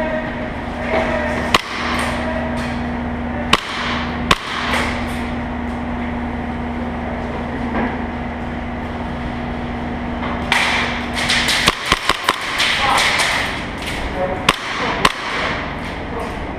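Airsoft guns firing in an indoor arena: scattered single sharp cracks early on the way, then quick clusters of shots about eleven and fourteen seconds in. A steady hum runs underneath until about eleven seconds in.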